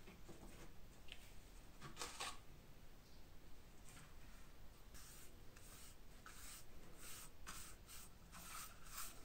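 A paintbrush swishing a liquid onto a leather bellows panel in short, quick strokes from about five seconds in, roughly two a second, after a rustle of the leather being handled about two seconds in. Faint, close sounds.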